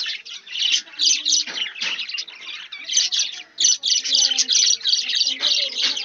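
A flock of budgerigars chirping and chattering, many short high calls overlapping without a break.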